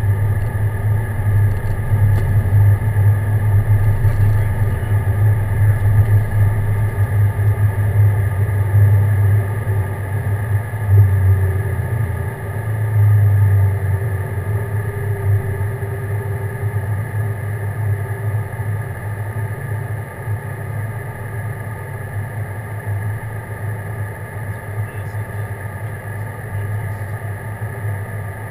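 Aircraft engines at takeoff power through the takeoff roll and climb-out: a steady low hum with a steady higher whine, slowly getting quieter over the second half.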